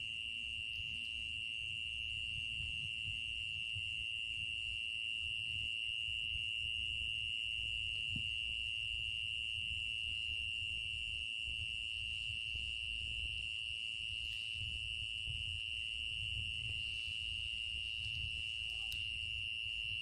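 Night insects trilling in one steady, unbroken high-pitched drone, over a low rumble on the microphone.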